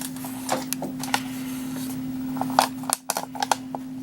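Scattered small clicks and knocks of tools and fittings being handled and repositioned, with a cluster of clicks about three seconds in, over a steady low hum.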